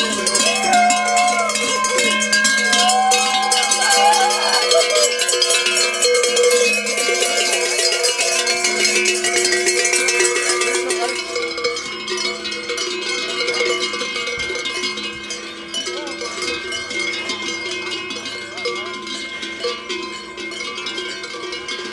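Many cowbells and bells worn by a troupe of walking carnival jesters, clanging and jangling together as they march. The clangour grows fainter about halfway through as the group moves off.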